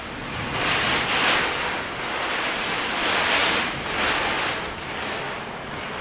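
Heavy storm rain pouring down with gusting wind, heard through an open screened window. The noise swells louder in gusts about a second in and again around three to four seconds.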